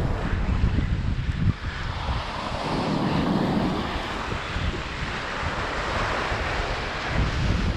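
Surf washing and breaking against rocks, with wind buffeting the microphone in uneven gusts.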